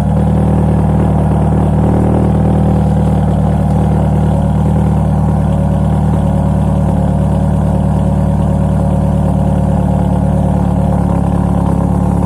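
Renault 19 16V's 1.8-litre sixteen-valve four-cylinder engine idling steadily through its newly fitted all-steel exhaust, a deep, even note that holds constant pitch throughout.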